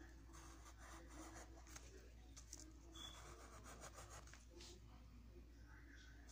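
Faint scratching of a graphite pencil drawing on lined notebook paper, in short irregular strokes.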